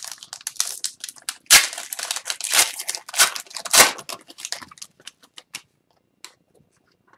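Plastic wrapper of an Upper Deck Series 2 hockey card pack being torn open and crinkled as the cards are pulled out. The crinkling dies away after about five seconds, leaving a few light clicks of cards being handled.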